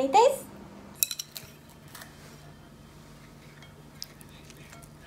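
Wooden chopsticks clicking lightly against a ceramic plate while picking up fried chicken: a quick cluster of clicks about a second in and a single click near four seconds, over a faint steady hum.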